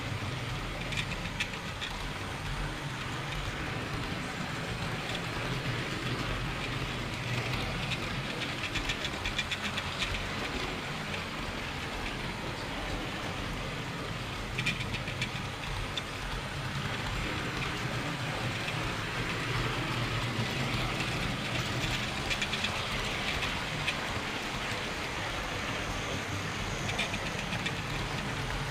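Model railway train running on its track, heard from a wagon it is pulling: a steady rolling rumble and low motor hum, with spells of rapid clicking from the wheels now and then.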